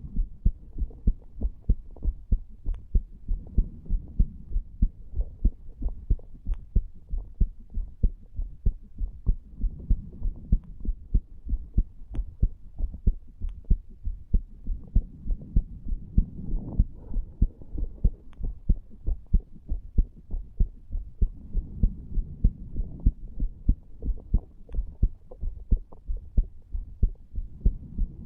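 A human heart beating in a steady, even rhythm of low thumps, picked up by a chest microphone placed over the tricuspid valve area. It is the heart of a man who has smoked a cigar and cannabis, the beat raised by the nicotine. A low rushing sound swells and fades about every six seconds beneath the beats.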